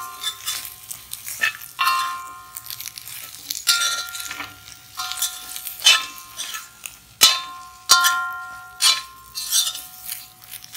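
A slotted metal spoon knocking and scraping against a metal pot while tossing fried beef pieces: irregular clanks, each leaving the pot ringing briefly.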